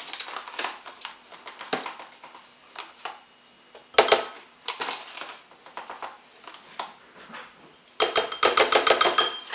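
Metal measuring spoons clinking and scraping against a glass bowl and rustling in a cornflour packet while cornflour is spooned out, with a louder clatter about four seconds in and a quick run of rattling near the end.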